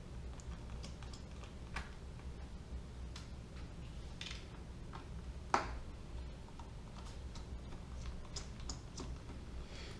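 Scattered light clicks and taps of small tools and laptop parts being handled during disassembly, with one sharper click about halfway through, over a low steady hum.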